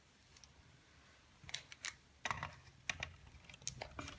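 Plastic parts of an Addi Express knitting machine being handled and fitted back together: a scattering of light clicks and knocks, starting about a second and a half in.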